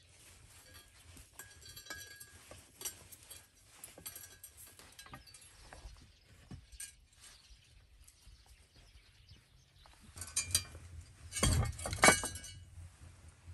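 Wire rustling and light metal clinks as a rusty metal fireplace door in its frame is handled and wired. Near the end, a few loud metal clunks as the door is set down on wooden blocks.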